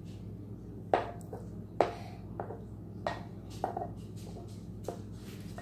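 A mixing utensil knocking and scraping against a bowl while shaving cream is stirred into glue slime, with about half a dozen separate knocks.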